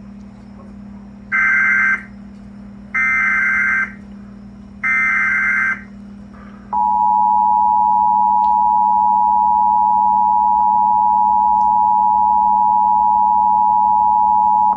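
Emergency Alert System signalling for a Severe Thunderstorm Warning. Three short bursts of SAME digital header tones, carrying the coded alert, are followed about a second later by the steady two-tone EAS attention signal, which holds for about eight seconds. A low steady hum runs underneath.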